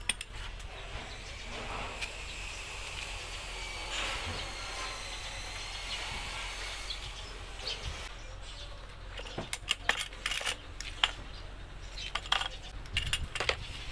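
Sharp metal clicks and light knocks of small parts and hand tools being handled while a bike floor pump's head is taken apart, coming thick and fast in the second half. Before that there is a steady outdoor background hiss.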